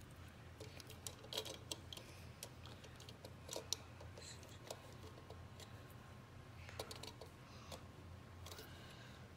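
Lego bricks being pressed together and handled: scattered faint plastic clicks and snaps, a few close together at a time, the sharpest about three and a half seconds in.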